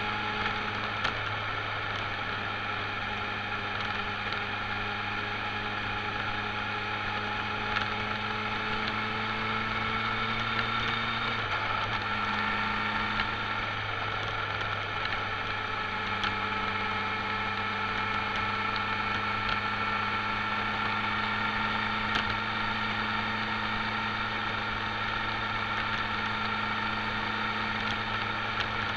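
Vehicle engine running steadily at cruising speed, heard on board, over road noise. Its pitch shifts briefly about 11 seconds in, then holds steady again.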